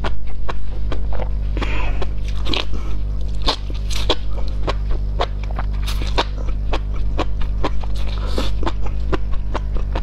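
Close-miked chewing of spicy enoki mushrooms in chilli broth: a steady run of crisp, wet crunches at about two to three a second, with a few louder, longer mouth sounds among them.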